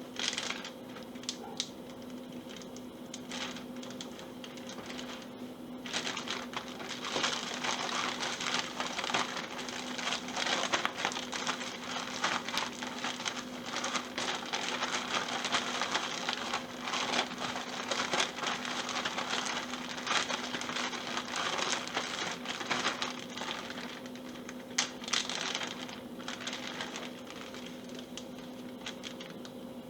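Flour-coated squirrel pieces frying in hot oil in a pan, a dense crackling sizzle that thickens about six seconds in and thins out near the end.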